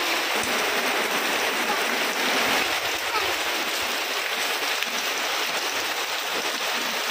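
Steady rain falling on a concrete yard and roof, an even hiss that holds level throughout, with water running off the roof edge.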